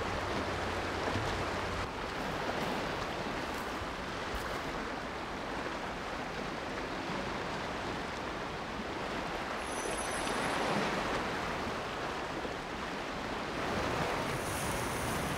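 Sea surf washing onto a sandy beach: a steady rushing hiss that swells a little about ten seconds in and again near the end as waves come in.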